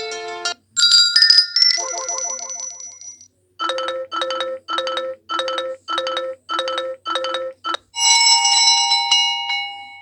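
Built-in ringtones and alert tones of an Optus X Start 2 mobile phone played one after another. A melody ends, a short rising chime follows, then a short beep repeats about eight times at about two a second, and a ringing chime fades out near the end.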